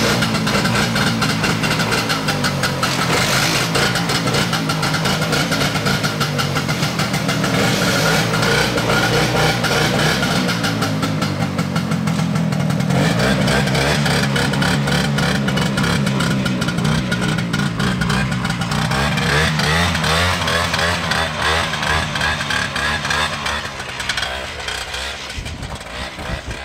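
Vintage two-stroke snowmobile engine running, its speed rising and falling as the sled is ridden, then fading near the end as it moves away.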